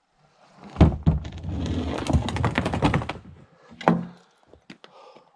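Plastic Jackson Mega Rocker kayak set down on the roadside tarmac: a loud thunk about a second in, then about two and a half seconds of knocking and scraping as the hull is lowered and slid into place, and one more sharp knock near the end.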